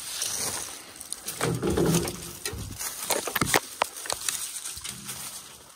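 Footsteps crunching through dry brush and leaves, with irregular snapping and cracking. The sharpest cracks come about three seconds in.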